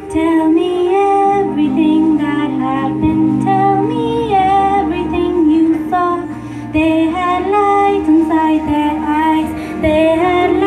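A young woman singing live into a microphone over an orchestral instrumental backing track, both amplified through the hall's PA. Her voice comes in right at the start, phrase after phrase, with a brief breath-pause about six and a half seconds in.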